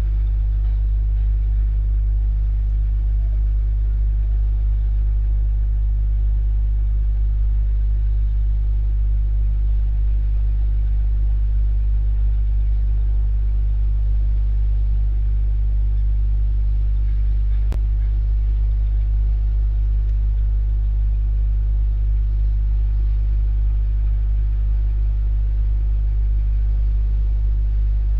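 Steady low electrical hum, a mains-type buzz with a faint hiss above it, unchanging throughout, with a single sharp click about eighteen seconds in.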